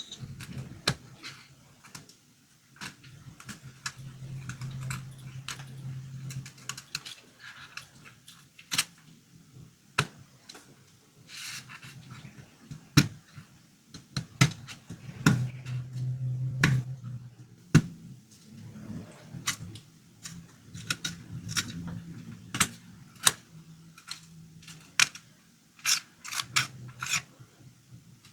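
Irregular sharp clicks, taps and scrapes of a hard plastic toy car being handled and worked on, with a low hum coming and going.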